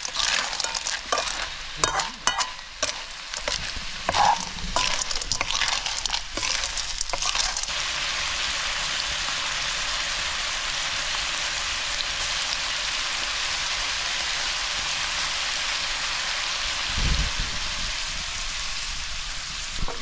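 River snails in their shells stir-frying in a metal wok: for the first several seconds a ladle knocks and scrapes through the pan in quick clicks and clatters, then a steady sizzle of frying runs on. A brief low thud sounds near the end.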